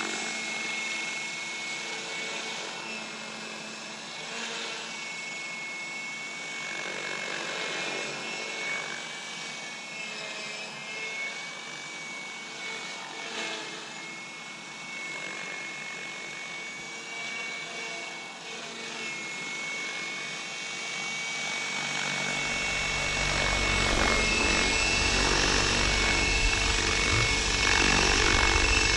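Align T-REX 700L Dominator electric RC helicopter flying, its motor and rotor giving a steady high whine over a rushing noise. About three-quarters of the way in it grows louder and a low rumble joins in as it comes in close and lands.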